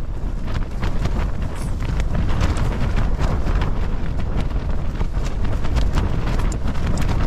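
Strong gusty wind buffeting a small backpacking tent, a heavy rumble on the microphone with frequent sharp snaps and flaps of the tent fabric.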